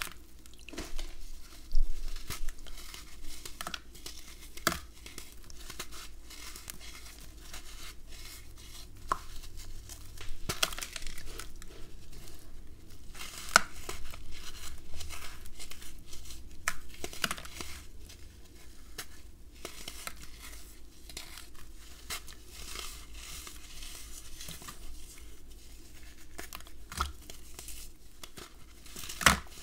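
Red sand blocks being crushed and crumbled by hand into a basin of water: a continuous gritty crackling and crunching, with scattered sharp cracks as pieces break apart.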